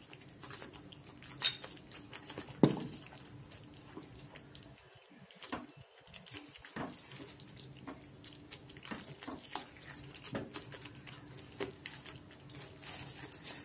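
Spatula stirring thick, sticky palm jaggery halwa in a nonstick pan: soft squelching slaps and scrapes with scattered clicks, and two sharper knocks in the first three seconds. The halwa has thickened and ghee is being worked into it.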